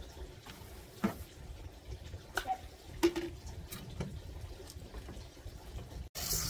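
A few faint knocks and clicks from an empty plastic-tub wheelbarrow being handled and moved. Near the end, a garden hose spray wand starts hissing as it sprays water into a bucket.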